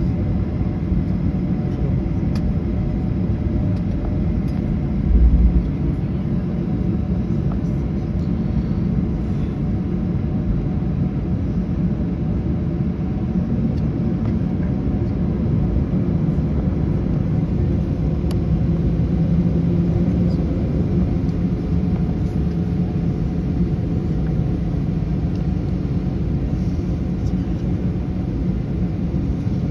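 Cabin noise of a Ryanair Boeing 737 taxiing: a steady low rumble from the jet engines at idle, with one short low thump about five seconds in.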